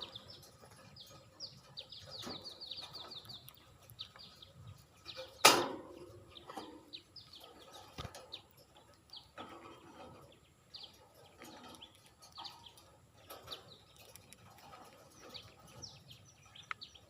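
Budgerigars chirping and chattering in short, quick calls, with a fast run of chirps about two seconds in. A single loud knock about five seconds in is the loudest sound.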